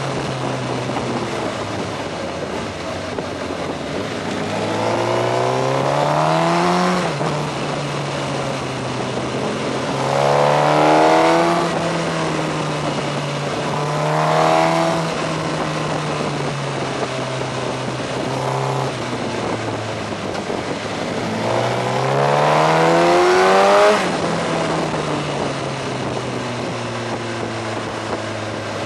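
Onboard sound of a Suzuki GSX-R 1000's inline-four engine under way, with steady wind rush. The engine revs climb four times and drop back after each one. The last and longest climb, near the end, cuts off abruptly as the throttle is shut.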